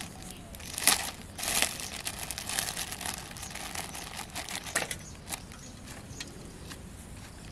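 Plastic packet crinkling and rustling as it is handled by hand, in irregular bursts over the first five seconds, loudest about a second in, then dying away.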